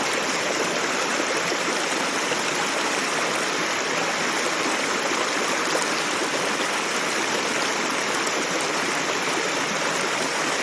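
Creek water pouring over small built-up waterfalls: a steady rushing and splashing.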